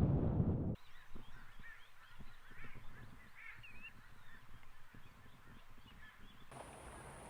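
Black-faced spoonbills calling: many short, overlapping calls from a group. A loud low rumble fills the first second and stops abruptly, and a steady high whine comes in near the end.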